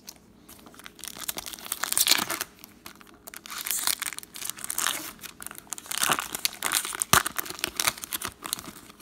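Foil Pokémon trading card booster pack wrapper being torn open and crinkled by hand, in repeated crackling bursts starting about a second in.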